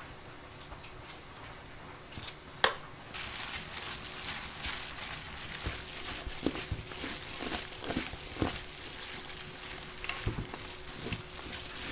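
Julienned radish being tossed and squeezed with chili seasoning by plastic-gloved hands in a stainless steel bowl. A single click comes near the start, then from about three seconds in there is a continuous wet, crackly rustle with small taps.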